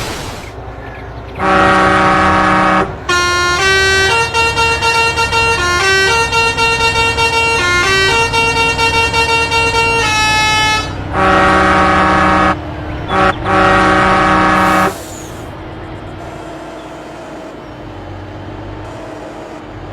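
Truck telolet horn, a multi-tone musical horn: one long chord, then a quick tune of changing notes for about seven seconds, then two more long chord blasts with a short toot between them. After the horn stops, the vehicle's engine is heard running.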